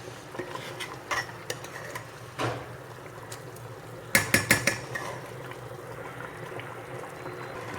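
Metal spoon clinking against a cooking pot of biryani rice: a few scattered clinks, then a quick run of clanks about four seconds in, over a low steady hum.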